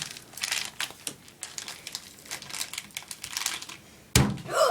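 Plastic packet crinkling and crackling irregularly as it is handled, with a loud thump about four seconds in.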